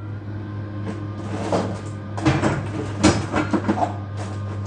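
Irregular bursts of knocking and rattling, several in a row, over a steady low hum.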